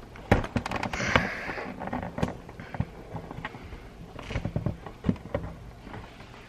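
3D printer parts being handled and fitted by hand: a string of small knocks and clicks, with a short rustling scrape about a second in.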